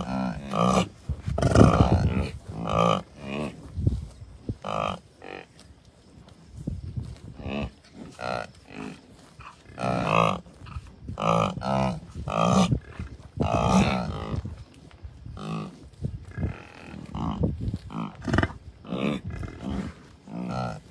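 A herd of American bison, cows and calves, calling: a stream of short pitched calls one after another, some overlapping. Wind buffets the microphone about a second or two in.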